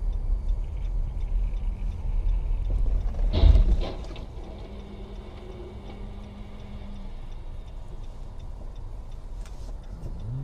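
Dashcam recording of a car's cabin while driving on a slushy winter road: low engine and road rumble, with a loud thump about three and a half seconds in, after which the noise drops to a quieter steady hum.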